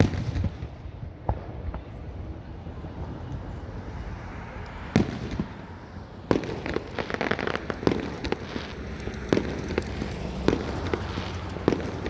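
Fireworks going off: a sharp bang at the start and another about five seconds in, then a quick run of bangs with crackling through the second half.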